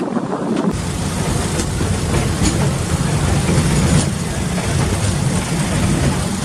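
Narrow-gauge passenger train running on 2 ft track, heard from inside the coach: a steady low rumble with a few sharp clicks. The first moment is wind on the microphone from outside the window, before a sudden change to the rumble.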